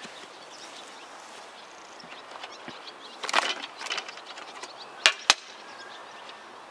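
Rustling and clatter about three seconds in, then two sharp knocks about a quarter second apart about five seconds in, against a steady outdoor background.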